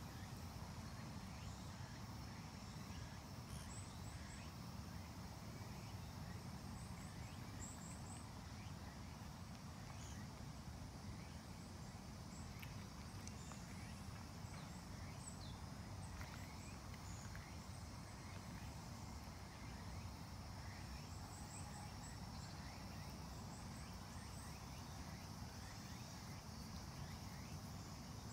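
Faint outdoor ambience: a steady low rumble with scattered brief, high chirps of small birds, often two or three in quick succession.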